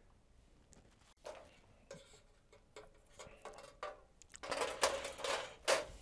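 Handling noise as LED backlight strips and tools are picked up and moved on a workbench: scattered small clicks and rustles, busier and louder in a dense stretch of rustling and clatter near the end.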